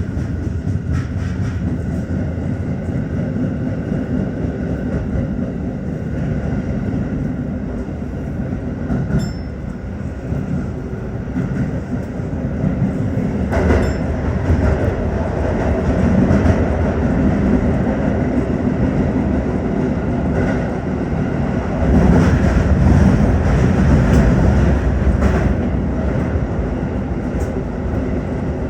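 Tokyo Metro 15000 series train running at speed: a steady rumble of wheels on rail with occasional clicks, one sharp click about halfway through. It swells louder a little after the middle and again toward the end.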